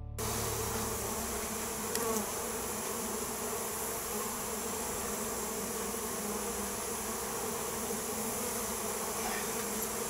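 Honey bees buzzing in a steady hum around an open nuc box, stirred up by being moved into it. There is a brief knock about two seconds in.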